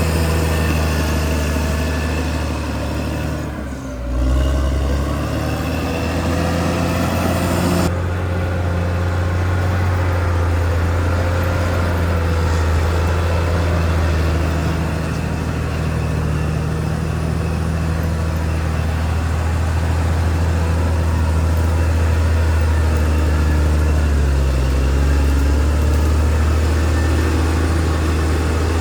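Caterpillar D6R XL bulldozer's diesel engine running steadily under work, a continuous low drone with a brief dip in level about four seconds in.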